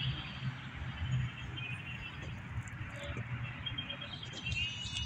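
Small birds chirping, a few short high chirps, sparse at first and more frequent near the end, over a low steady rumble.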